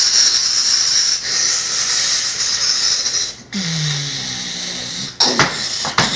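Pretend spaceship noise: a steady, loud rushing hiss that cuts off about three and a half seconds in. It is followed by a low, falling tone and then a few sharp knocks.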